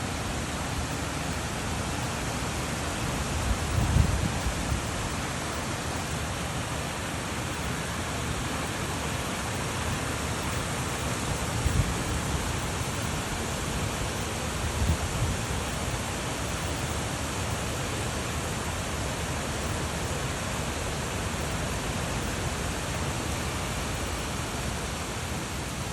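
Heavy rain falling steadily, a dense even hiss. Three brief low rumbles rise out of it, about four, twelve and fifteen seconds in.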